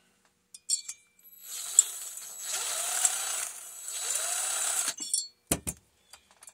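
Socket ratchet wrench clicking in two long runs, with a few short clicks before and two sharp knocks afterwards. These are hand tools working fasteners on a chainsaw top end during a teardown.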